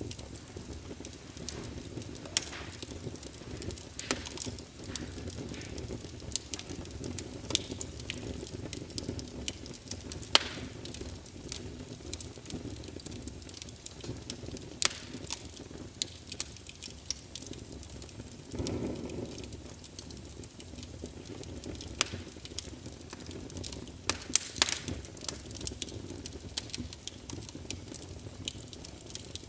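Wood log fire burning: a steady low rush under irregular sharp crackles and pops, with a brief louder rush about two-thirds of the way through.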